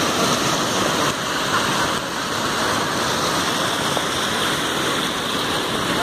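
Waterfall: water pouring over a rock ledge into a churning pool, a steady rushing.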